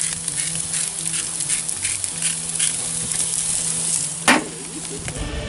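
Steaks sizzling on a portable grill, a steady crackle with small pops. About four seconds in there is a single sharp metal clank as the grill lid is shut.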